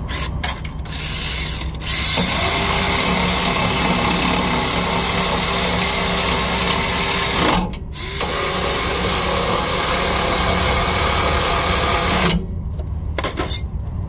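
Handheld power tool running at a steady pitch in two long runs, about five seconds then about four, with a short break between them.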